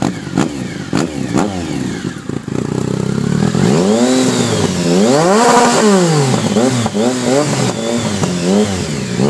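Triumph Speed Triple 1050 inline-three engine through a Competition Werkes exhaust with the quiet insert out, running with a few sharp pops and then blipped through a series of revs that rise and fall in pitch, the biggest about halfway through. There is a little popping from the exhaust as the revs drop.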